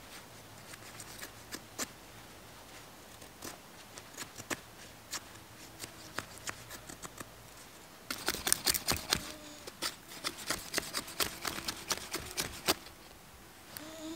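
A steel knife blade scraping thin curls from a dry stick in light, scattered strokes. About eight seconds in come rapid, louder, sharper scrapes, the knife's spine raked down a ferro rod to throw sparks onto the tinder for a fire.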